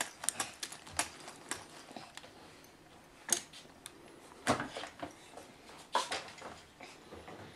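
Irregular light clicks and clacks of plastic baby-gym toys being grabbed and knocked together, with a few louder knocks about three, four and a half, and six seconds in.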